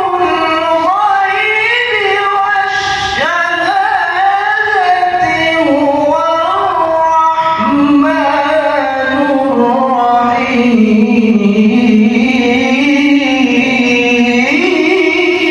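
A man's voice reciting the Quran in melodic tilawah style, holding long ornamented notes in one unbroken line. It drops to a lower register about halfway through, then climbs again near the end.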